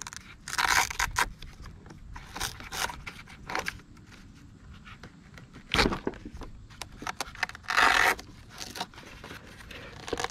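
A 4S LiPo battery pack being handled and pulled out of the FMS Ranger's EPO foam battery bay and unplugged: several short scraping and tearing bursts against the foam, with one sharp knock a little past halfway.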